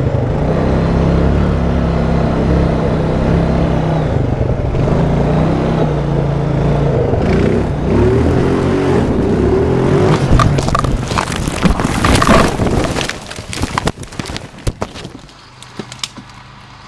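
Honda Rancher ATV engine running steadily on a dirt trail, then, about ten seconds in, a rapid series of knocks, scrapes and crashes as the ATV rolls off the trail edge and tumbles down the slope. The impacts thin out and stop a second or two before the end.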